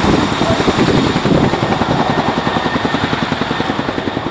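Helicopter rotor beating in a rapid, even rhythm, slowly getting quieter.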